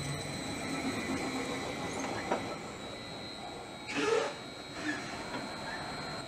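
Stadler FLIRT electric multiple unit standing at the platform, its on-board equipment giving a steady hum with a thin high whine. A brief louder sound stands out about four seconds in.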